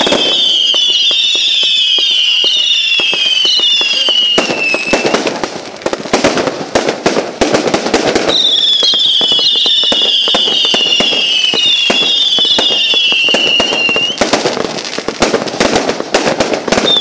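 Fireworks display: a long high whistle slowly falling in pitch, then a few seconds of dense crackling bangs, then a second long falling whistle and more crackling, with another whistle starting near the end.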